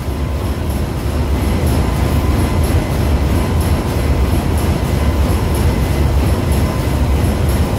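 Steady, loud low machinery rumble of a ship's engine room, with a faint regular high ticking on top.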